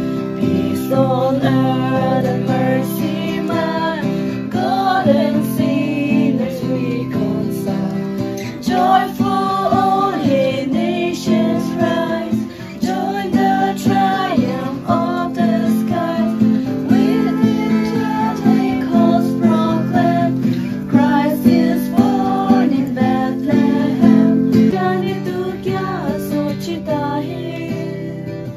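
Women singing a song together over strummed acoustic guitar.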